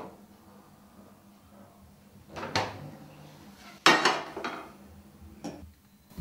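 Kitchen handling noises: a knock about two and a half seconds in, a louder sudden clatter with a short ringing tail about a second later, and a lighter knock near the end, like dishes, a pan or a door being handled.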